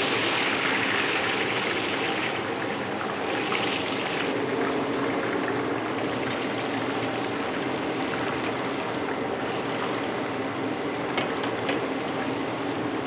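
Garlic and shallots sizzling in a large amount of hot oil, the sizzle strongest in the first couple of seconds just after they go in, surging again briefly about three and a half seconds in, then settling to a steady sizzle. A few faint clicks near the end.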